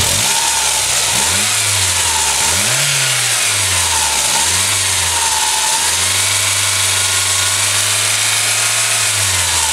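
Toyota Celica GT-Four ST205's turbocharged 3S-GTE four-cylinder engine running, revved up and down about three times, then held at a steady raised speed before dropping back near the end. It runs with no strange noise from the freshly fitted timing belt.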